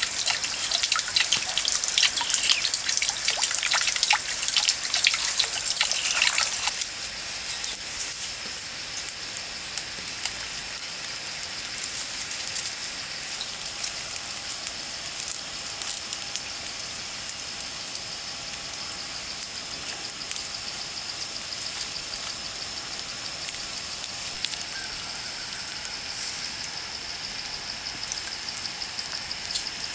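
Water trickling and splashing from a small spout into a pond. About seven seconds in this gives way to a small wood fire crackling softly with scattered pops, under a faint steady high tone.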